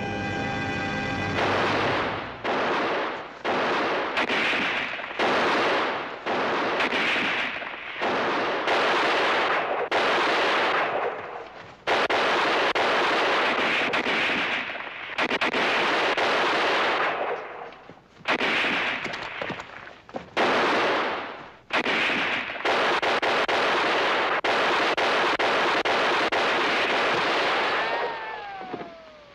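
Heavy automatic gunfire in a dozen long bursts of one to three seconds each, with short gaps between them, after brass music breaks off about a second in. Near the end the firing stops and a short falling tone is heard.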